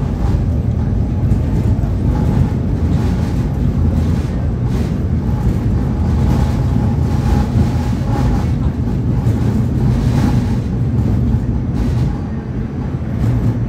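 Tatra T4R tram running along street track, heard from inside the car: a loud, steady low rumble of wheels on rails with occasional knocks from the track, and a faint steady whine for a few seconds in the middle.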